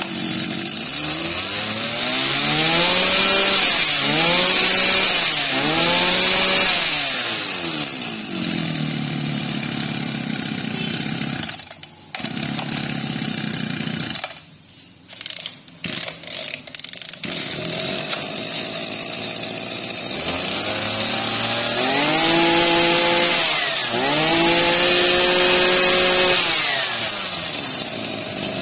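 Robin 25cc brush cutter engine running after a start: it is revved up and down three times, settles to a steadier note, then cuts out briefly about halfway with a few sputters before running again and being revved twice more.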